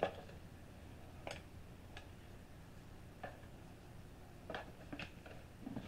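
Dry no-boil lasagna noodles being broken and laid into a metal springform pan: a few faint, scattered crisp clicks and snaps.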